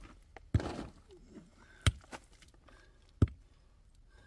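Sharp knocks from blows of a hand tool, struck at a steady pace of three in a row about a second and a half apart. The first blow is followed by a short scraping rustle.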